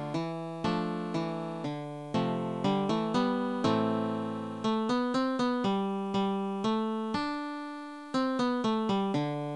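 MIDI-rendered acoustic guitar (synthesised from a Tabledit score) playing a solo fingerstyle arrangement of a folk melody: single plucked notes over bass notes, each note struck sharply and dying away evenly.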